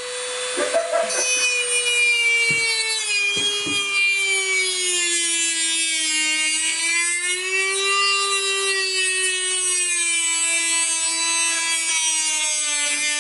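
Handheld rotary tool with a cutting wheel running at high speed as it cuts through a car canard: a steady high whine whose pitch sags and wavers as the wheel bites into the part under load. There are a few short clicks about two to four seconds in.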